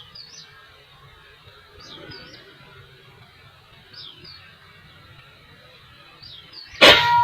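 A small bird repeating a short two-note chirp about every two seconds over outdoor background noise, then near the end a sudden loud crack, the shot of an air rifle.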